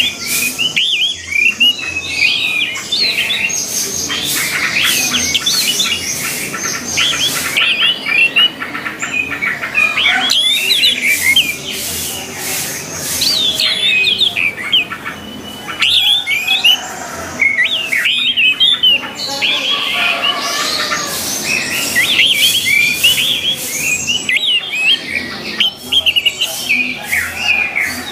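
Orange-headed thrush singing: a dense run of quick, varied chirping phrases with short pauses between bursts.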